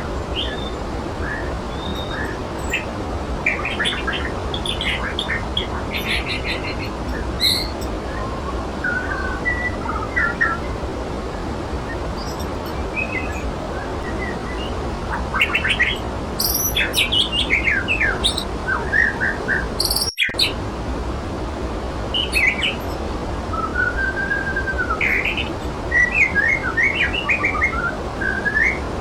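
Waterfall rushing steadily, with many birds chirping and whistling over it throughout. The sound cuts out for an instant about two-thirds of the way through.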